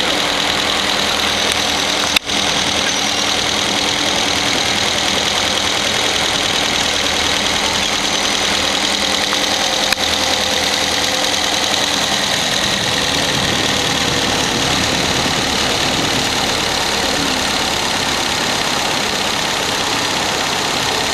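A boat engine idling steadily, with two brief clicks, one about two seconds in and one near the middle.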